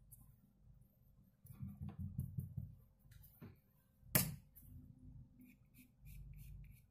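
Faint scraping and dabbing of a flat bristle brush working oil paint on a painting board, in a quick run of soft strokes, then one sharp click about four seconds in.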